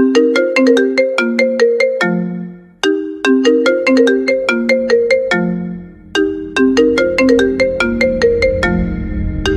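Soft phone ringtone: a short melody of quick plucked notes that loops about every three seconds. Near the end a low steady tone swells in underneath.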